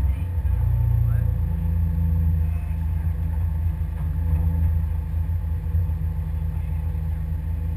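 Pinzgauer off-road vehicle's engine idling with a steady low drone.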